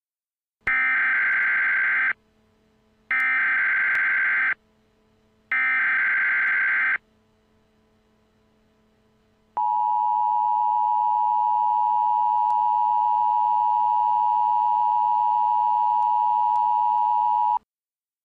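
Emergency Alert System tones: three bursts of SAME header data, each about a second and a half long with a second's gap between them, then after a short pause the two-tone EAS attention signal held steady for about eight seconds.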